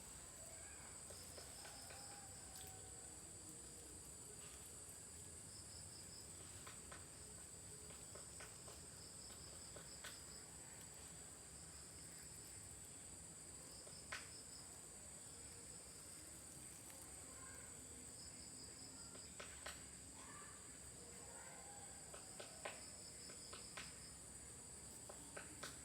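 Insects, crickets among them, buzzing steadily at a high pitch, with short bursts of rapid chirping every few seconds and a few faint clicks.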